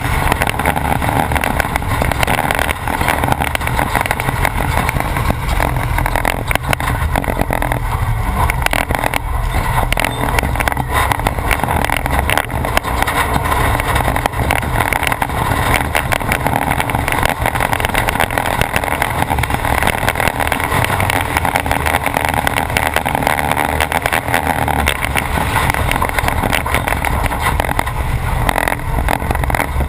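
Off-road race truck's engine running steadily at speed, with continuous knocking and rattling as it drives over rough track.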